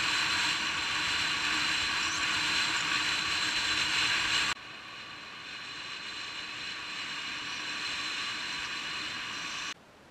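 Honda Click 125i scooter's single-cylinder engine and wind noise while riding, heard steadily through a helmet-mounted microphone. The sound drops abruptly in level about four and a half seconds in and again near the end.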